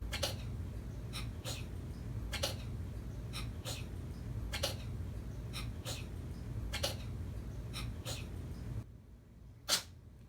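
A cat sneezing over and over, a quick run of short sharp sneezes at uneven spacing with a low rumble behind them. The rumble cuts out near the end, and one single louder sneeze follows.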